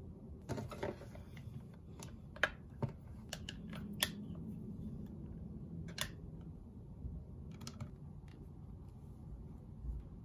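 Clear plastic OtterBox Symmetry case being pressed and snapped onto an iPhone 12: a series of sharp plastic clicks and taps, several in the first four seconds, then single ones about six and seven and a half seconds in.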